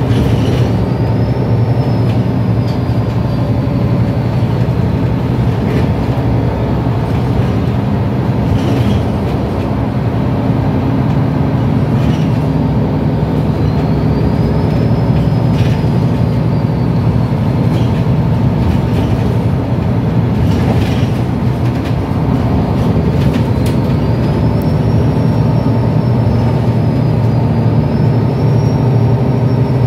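Interior of a MAN A22 Euro 5 city bus under way: its diesel engine running steadily with road noise. A faint high whine rises and falls a few times, and short knocks and rattles come now and then.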